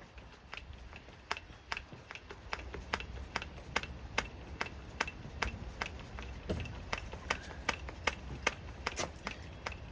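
Hand-lever grease gun being pumped on a cement mixer's grease fitting: a steady run of sharp clicks, about two to three a second.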